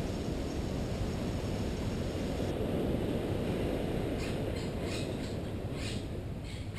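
Steady low rushing outdoor noise. From about four seconds in, a run of short high chirps sits over it.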